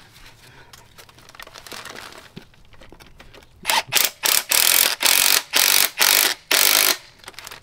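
Faint handling clicks, then a cordless impact wrench on the top nut of a Civic Type R front strut assembly, hammering in about seven short bursts over the last few seconds.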